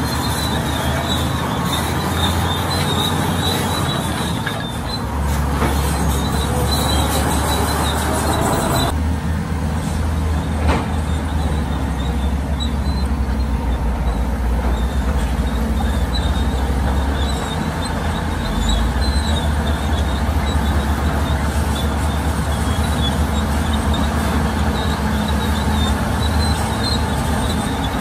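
Heavy diesel earthmoving machinery running at work: a steady deep engine drone with a thin high metallic squeal over it, the squeal and clatter easing off about nine seconds in.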